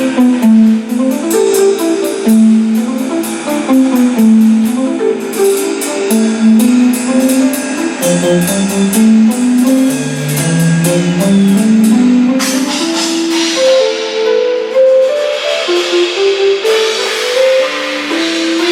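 Drum kit with many cymbals played in a busy jam, rapid drum and cymbal strikes over a pitched melodic line that steps up and down. The cymbal wash grows denser and louder about two-thirds of the way in.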